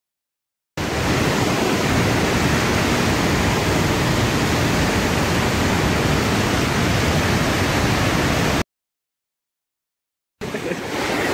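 Flash-flood waterfall of muddy water pouring down a rock canyon: a steady, loud rush of falling water. It cuts in abruptly about a second in and breaks off to dead silence for about two seconds before returning near the end.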